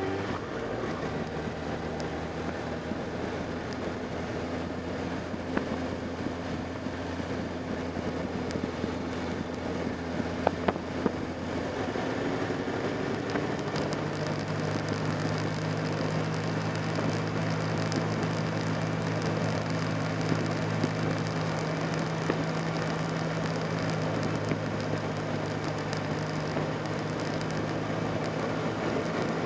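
Motorcycle engine running steadily while riding, with wind rushing past. The engine note shifts about halfway through, and a few sharp ticks come near the middle.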